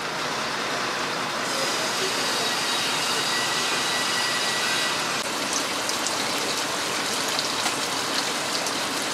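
Water running from pipework into standing water: a steady rushing hiss with a few faint ticks in the second half.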